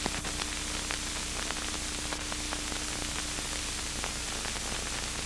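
Steady hiss with faint, irregular crackles and a thin steady hum: the background noise of an old film soundtrack, with no machine sound standing out.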